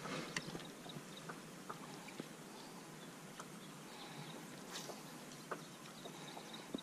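Faint outdoor background hiss with scattered light clicks and knocks, and a brief soft swish about five seconds in.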